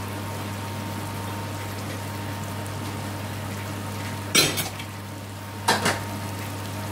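Chopped onion and green pepper frying gently in ghee in a metal pan, over a steady low hum. About four seconds in, and again just over a second later, steel pots and lids clatter on the stovetop.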